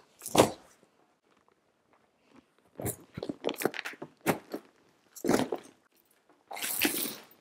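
Crinkling rustles and soft knocks of things being handled, coming in short separate bursts, with a longer, denser rustle near the end.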